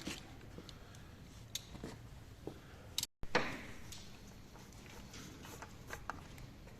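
Scattered light clicks and knocks of tools and engine parts being handled, with a brief break about three seconds in followed by a louder knock.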